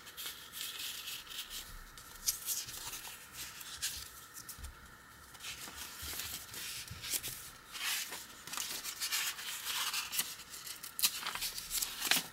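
Paper pages of a handmade journal being turned and handled: a series of rustling swishes, with a few sharp crinkles, one about two seconds in and others near the end.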